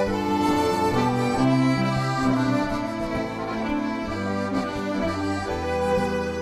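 Folk ensemble playing a waltz, with fiddles and accordions carrying the tune over guitar.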